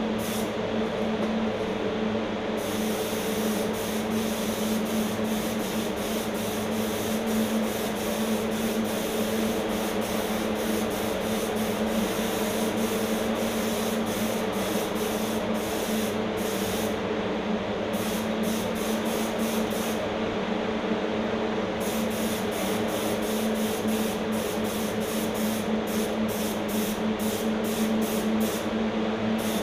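HVLP spray gun hissing as it sprays paint, the air cutting in and out as the trigger is pulled and released, with quick on-off bursts near the end. A steady machine hum runs underneath.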